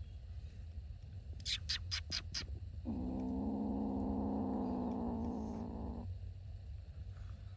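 Hungry kittens crying: five quick high-pitched squeaks about a second and a half in, then one long, low cry of about three seconds that holds a level pitch.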